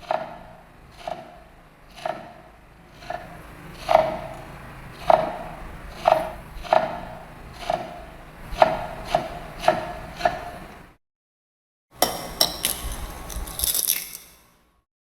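Knife chopping on a cutting board: about a dozen slow, uneven strokes, each a hollow knock. After a short gap, a couple of seconds of higher-pitched clinking and clattering.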